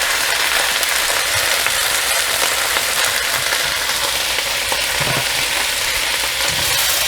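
Cut bodi (long beans) sizzling steadily in hot oil with fried onion and garlic, with a few soft knocks now and then.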